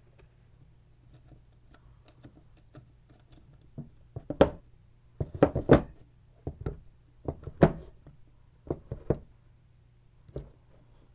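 Screws being driven back into the two halves of a version 2 airsoft gearbox shell: light clicks at first, then from about four seconds in a string of sharp knocks and clatters, roughly one cluster a second.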